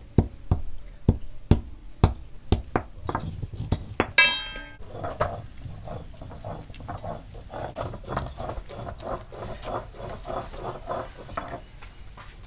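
Stone roller grinding turmeric on a flat grinding stone (ammi kal). There are sharp knocks about two a second as it crushes the pieces, then even back-and-forth grinding strokes about three a second as the turmeric goes to a wet paste. A brief animal call comes about four seconds in.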